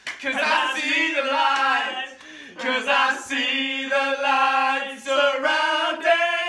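A group of young men's voices singing together loudly, holding long notes with short breaks between phrases.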